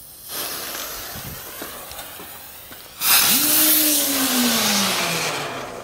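Firework ground spinner: its fuse sputters and hisses for about three seconds, then the spinner ignites with a loud rushing hiss and a whirring tone that falls in pitch as it spins down, fading near the end.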